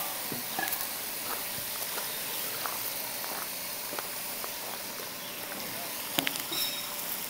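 Two young chocolate Labradors scuffling on gravel: scattered light crunches and clicks from their paws over a steady outdoor hiss, with one sharper click about six seconds in.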